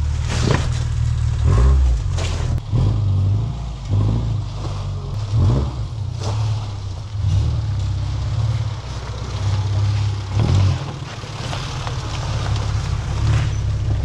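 Car engine revving up and down unevenly under load as the vehicle crawls over rocks, with a few sharp knocks mixed in.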